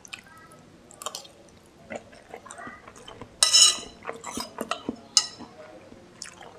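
Metal spoon and fork clinking and scraping on a ceramic plate while eating fried noodles, with mouth and chewing sounds between. The loudest is a sharp noise of about half a second just past halfway.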